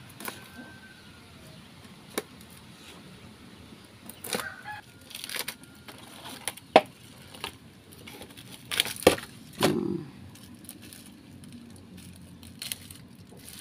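Scissors snipping through a cardboard shipping box and the cardboard being torn open by hand: scattered sharp snips with a few louder bursts of tearing and rustling.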